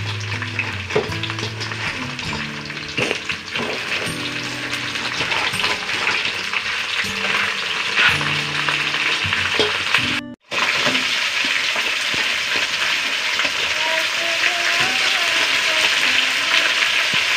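Crabs frying in a wok, a steady sizzle. For the first ten seconds a metal spoon clicks against a steel bowl and the wok as crab pieces are moved in. After a brief break about ten seconds in, the sizzle runs on, steadier and fuller.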